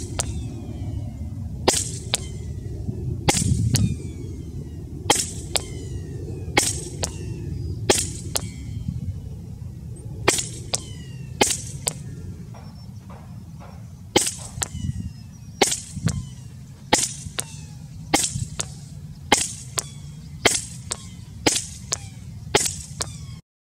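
A string of about fifteen sharp shots from a .25 calibre Edgun Leshiy 2 PCP air rifle with a 450 mm shrouded Shopot barrel, fired one every second or two, each shot followed closely by a fainter second crack.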